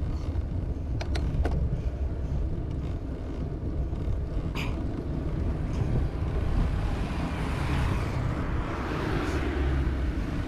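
Wind buffeting a handlebar-mounted camera's microphone on a fast road-bike descent: a steady low rumble, with a few sharp clicks about a second in. A hissing rush swells over the last few seconds.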